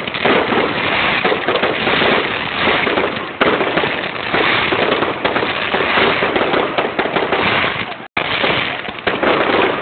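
Fireworks: a dense, unbroken barrage of firecrackers crackling, with one sharper bang about three and a half seconds in. The sound cuts out for an instant just after eight seconds.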